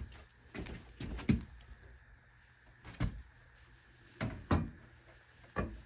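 A series of irregular knocks and clunks, about six over several seconds, the loudest a little over a second in, over a low steady hum.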